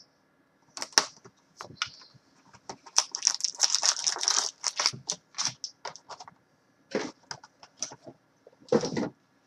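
A sealed trading-card box being opened by hand: a knife slitting the wrapper, cardboard crackling, and a dense crinkling rustle as the foil packs are pulled out, followed by a few knocks as the packs are set down in a stack.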